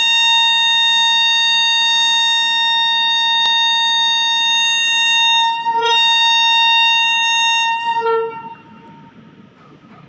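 WAP-7 electric locomotive's horn sounding one long steady blast, broken briefly about six seconds in and cut off about eight seconds in, as the train gets ready to depart.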